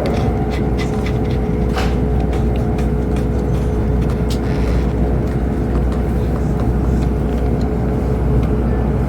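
Steady rumble of a high-speed train heard from inside the passenger cabin while running at speed, with a constant hum and a few light clicks.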